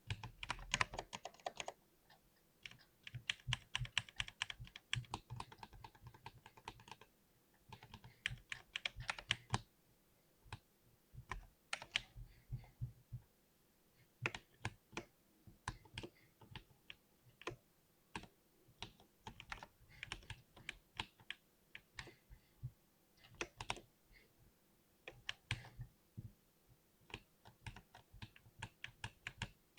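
Typing on a mechanical keyboard with Cherry MX Silver linear switches: fast runs of keystroke clicks in flurries, with brief pauses between them.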